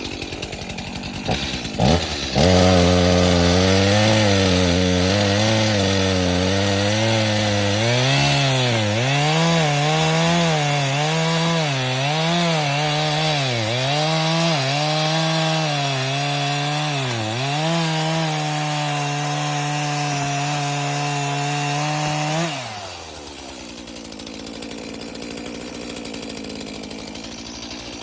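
Chainsaw revving up about two seconds in and cutting into a tree trunk to fell it, the engine pitch dipping again and again as the chain bogs under load. Near the end it drops back to a steady idle.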